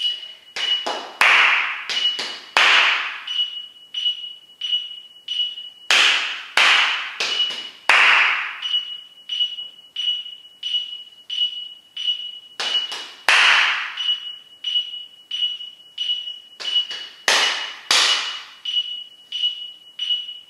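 Body percussion: short phrases of hand claps and slaps in quarter- and eighth-note rhythms, each phrase followed by a few beats of rest. A steady electronic metronome beep keeps the pulse underneath, somewhat under two beeps a second.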